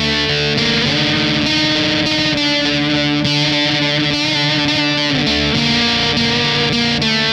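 Electric guitar played through a fuzz effect, holding sustained distorted notes, with a slide up in pitch about a second in and a slide down near the end.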